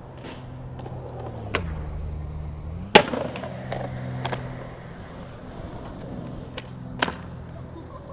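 Skateboard wheels rolling with a steady low hum, broken by sharp clacks of the board: one about a second and a half in, a loud one about three seconds in, and another about seven seconds in.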